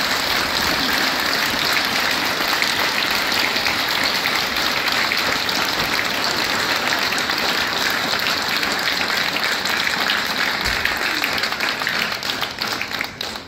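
An audience applauding steadily, many hands clapping, fading out near the end.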